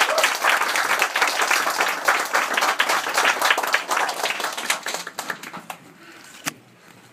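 Audience applauding, the clapping thinning out and dying away about six seconds in, followed by a single sharp knock near the end.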